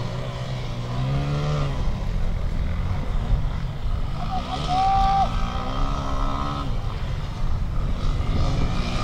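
Off-road motocross motorcycle engine revving up and down in pitch as the rider works through the course. Underneath is a low, gusty rumble of wind on the microphone.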